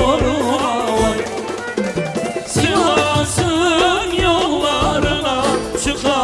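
Lively Turkish folk song played live by a band with drums, male voices singing into handheld microphones with wavering, ornamented melody lines. The band gets fuller about two and a half seconds in.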